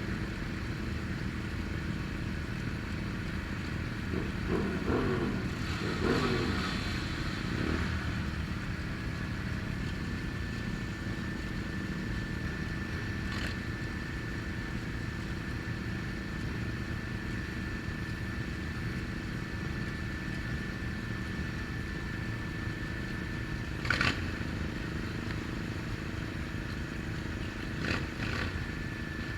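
A small motorcycle engine running steadily, its pitch wavering briefly early on, with a few sharp clicks.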